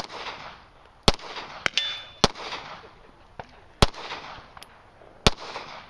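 Rifle shots fired one at a time, five strong reports about a second to a second and a half apart, each trailing off in echo. Fainter sharp clanks between the shots, one with a short ring, are typical of bullets striking steel targets.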